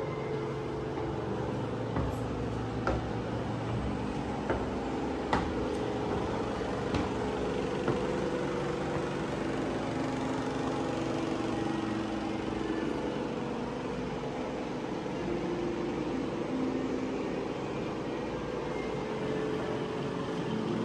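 Footsteps climbing open-tread stairs: a handful of sharp knocks during the first eight seconds, over a steady background hum.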